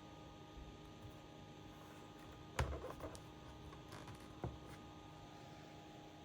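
A sharp knock followed by a brief clatter about two and a half seconds in, and a second knock about two seconds later, over a faint steady hum.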